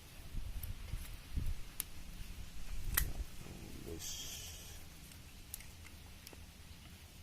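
Scattered light clicks and low knocks of hand tools and metal parts being handled during brake work, the sharpest click about three seconds in, with a brief hiss about a second later.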